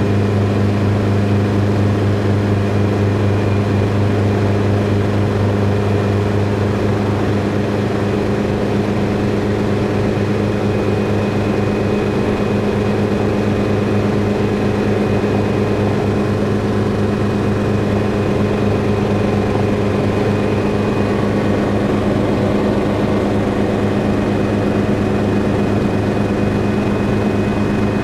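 Helicopter running steadily: a loud, even drone with a deep steady hum and a faint high whine over it, unchanging throughout.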